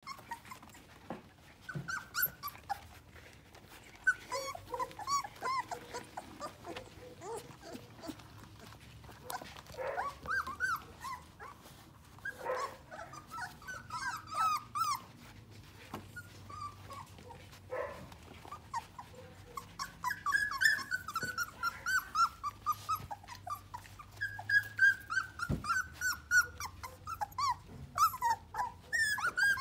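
A litter of four-week-old sheepadoodle puppies whining, with many short high-pitched calls overlapping one another. The calls come more thickly in the last third.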